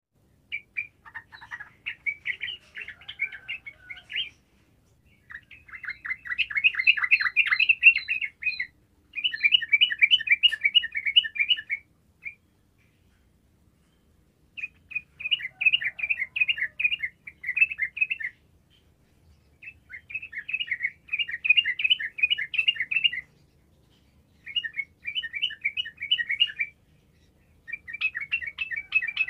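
Yellow-vented bulbul singing: about seven phrases of rapid, bubbling chirped notes, each lasting two to three seconds, with short pauses between them.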